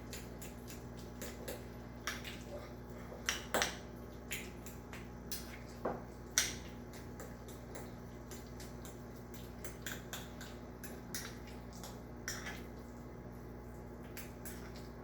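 A metal fork stirring and mashing guacamole in a small bowl: irregular light clicks and taps of the fork against the bowl, a few louder ones about three and a half and six and a half seconds in.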